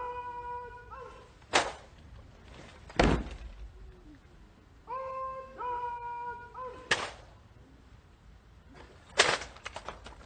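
Ceremonial cannon salute: four sharp gun shots, a few seconds apart, the last the loudest. Twice a long, drawn-out pitched call is heard just before the shots.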